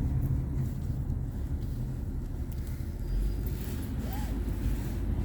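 Steady low rumble of a vehicle's engine and tyres, heard from inside the cabin while driving. A short, faint rising-and-falling tone comes through about four seconds in.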